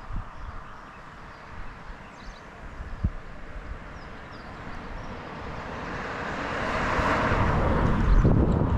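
A vehicle approaching and passing close by, its noise swelling steadily over several seconds and peaking near the end.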